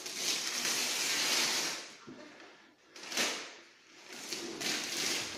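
Wrapping paper being torn and crinkled off a long gift: a long rip, a short sharp tear about three seconds in, then more tearing and rustling.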